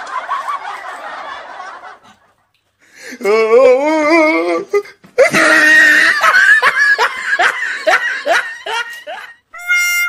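Laughter in three bursts with short gaps between them. The middle burst wavers up and down in pitch, and the last is a run of repeated rising 'ha's that slows and fades. A comic music sting starts right at the end.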